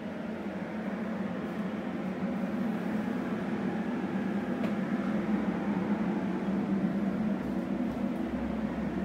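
A steady low hum, gradually getting louder.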